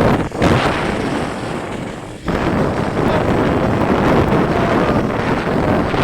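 Strong wind blowing hard across the microphone, a loud, dense rush with two brief dips, one about a third of a second in and one just after two seconds.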